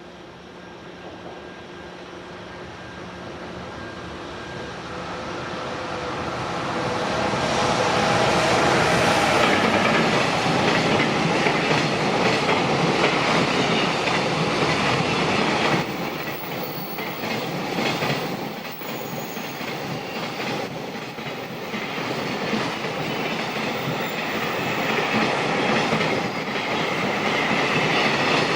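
Freight train approaching and passing, its rumble building over the first eight seconds or so, then wagons rolling by with a rhythmic clickety-clack of wheels over rail joints.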